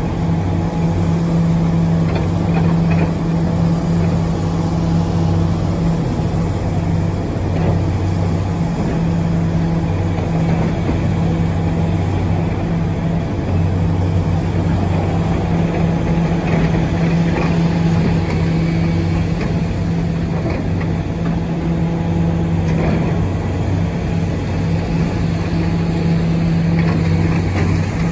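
Diesel engine of heavy earthmoving machinery running steadily at constant speed, with a low, even pitch.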